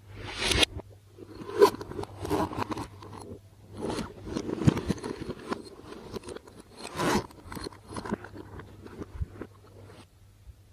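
Slime being squeezed and worked by hand, giving a run of irregular sticky crackles, clicks and squelches.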